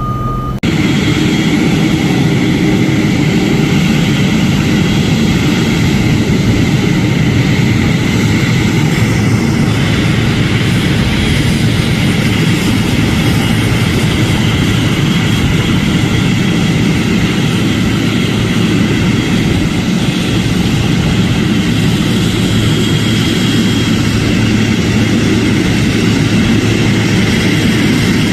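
Boeing 777-300ER's GE90 turbofan engines running, a loud steady noise with a held whine on top that comes in suddenly just after the start.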